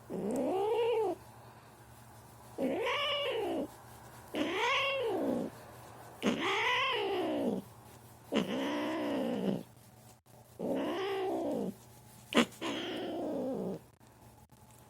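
An angry domestic cat yowling seven times, each drawn-out call rising and then falling in pitch, the warning cry of a cat annoyed by too much petting. A brief sharp click comes between the last two yowls.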